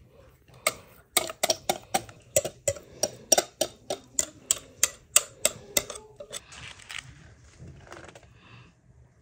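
A quick run of sharp, evenly spaced taps, about three a second, lasting about five seconds, followed by a soft scraping as a knife spreads cake batter over baking parchment.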